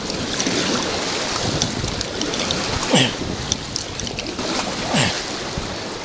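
Rushing whitewater of a river rapid around a paddled raft, with two louder splashes about three and five seconds in.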